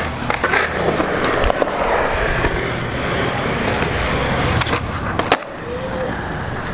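Skateboard wheels rolling over pavement with a steady grinding roll, broken by a few sharp clacks of the board; the loudest clack comes about five seconds in, after which the sound drops to a quieter background.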